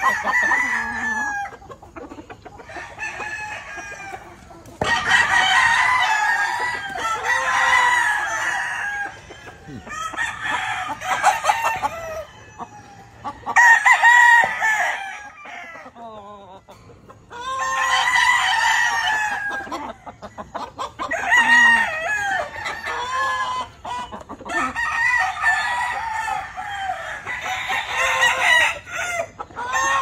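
Game-fowl roosters crowing in turn, a long crow every few seconds, some coming close on each other's heels.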